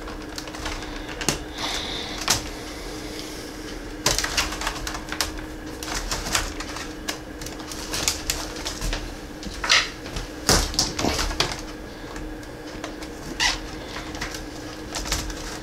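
Irregular plastic clicks and snaps as a replacement keyboard is pressed down into an HP Pavilion 15 laptop's top case, its edges and retaining tabs being pushed into place, with the sharpest snaps about ten to eleven seconds in.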